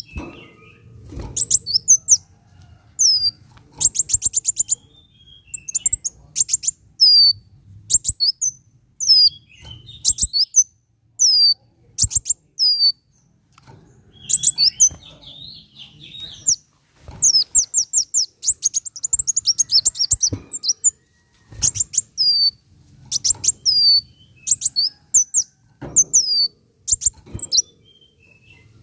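Kolibri wulung sunbird singing: bursts of high, sharp downslurred chips and fast rattling trills, with short pauses between phrases.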